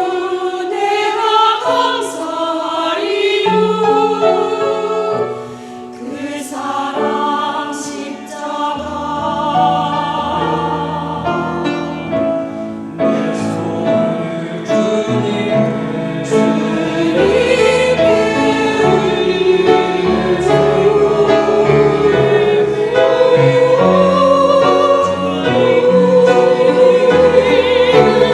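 Mixed church choir singing an anthem in parts, with accompaniment sustaining low notes beneath the voices.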